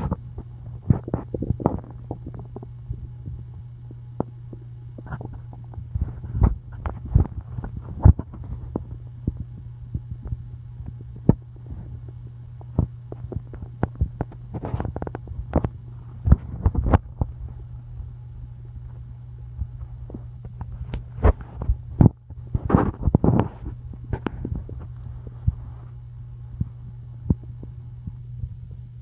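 Hungry person's stomach and intestines gurgling on an empty stomach: scattered short pops and clicks, with a few longer bubbling gurgles, the strongest about three quarters of the way through, over a steady low hum.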